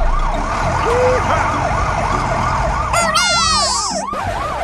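Emergency-vehicle siren in a fast yelp, rising and falling about four times a second. About three seconds in, a tone with many overtones slides steeply down in pitch over it.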